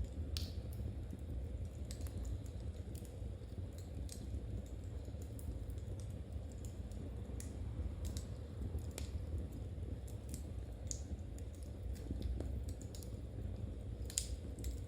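Knitting needles clicking lightly and irregularly as stitches are worked, over a steady low rumble.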